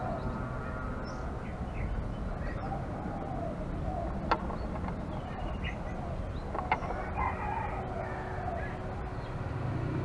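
Spotted dove cooing in repeated low, rounded phrases, with two sharp clicks about four and seven seconds in.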